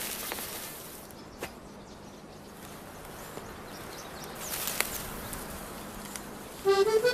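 Faint outdoor ambience with a few scattered knocks and scrapes of a tool digging up yellow gentian roots. Accordion music starts near the end.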